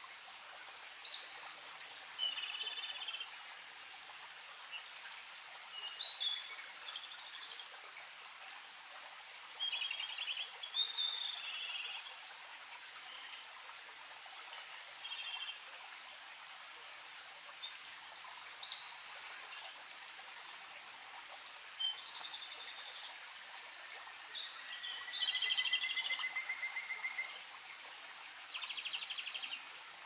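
Birdsong from a Japanese robin and a blue-and-white flycatcher singing nearby: short phrases of high whistles and trills, one every few seconds, over a steady background hiss.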